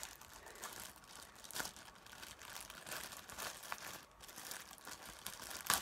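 Thin plastic shirt bag crinkling as it is handled and pulled apart, with irregular crackles and a sharper crackle near the end.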